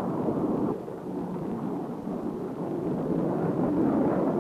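Steady rumbling roar of jet aircraft in flight, dipping a little under a second in and slowly building back up.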